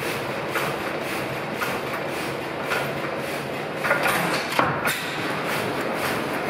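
Old Tangye stationary petroleum engine running, its crank and connecting rod turning with a steady rhythmic knock about twice a second. A few louder knocks come about four seconds in.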